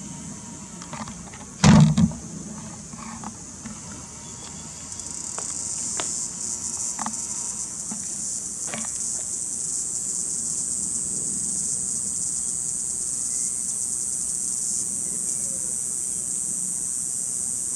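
Chorus of cicadas buzzing in a steady high drone that swells over the first several seconds and then holds level. A loud short thump comes about two seconds in.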